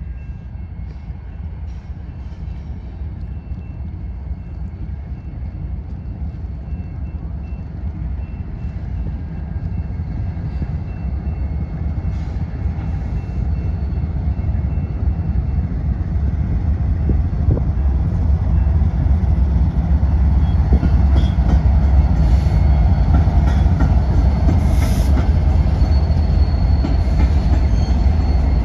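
Train rumbling, growing steadily louder as it approaches, with a few faint high steady tones over the low rumble.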